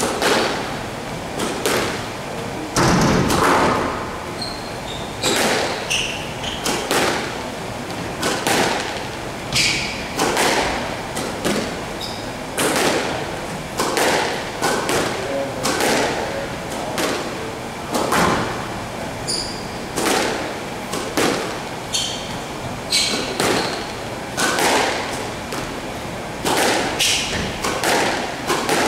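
Squash ball being hit back and forth: a steady run of sharp racket strikes and thuds of the ball off the court walls, roughly one a second, echoing in the enclosed court.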